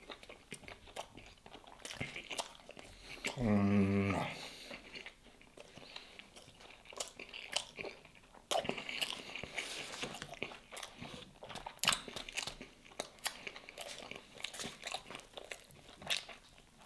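Close-miked chewing and mouth smacks of a man eating baked stuffed bread, with a short falling hum about three seconds in. Near the end comes the sound of the bread's crust being pulled apart by hand.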